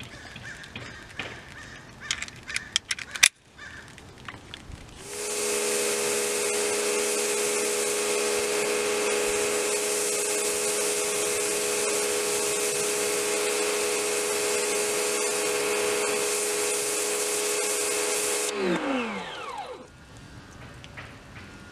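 Karcher K1700 Cube electric pressure washer running, its motor and pump humming steadily under the loud hiss of the high-pressure spray rinsing foam off a truck's tailgate. Near the end the spray stops and the motor winds down in falling pitch. A sharp click comes a few seconds before the spray starts.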